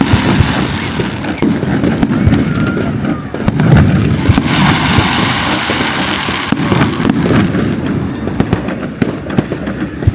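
Fireworks display going off: a dense, continuous barrage of crackling and popping over low bangs.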